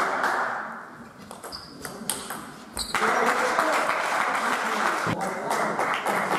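Table tennis balls clicking on tables and bats, a few scattered sharp ticks, over a murmur of voices from people in the hall. The murmur drops away about a second in and comes back about three seconds in.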